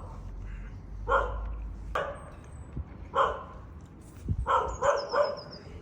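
A dog barking in short single barks, about six in all, spaced roughly a second apart and then three in quick succession near the end.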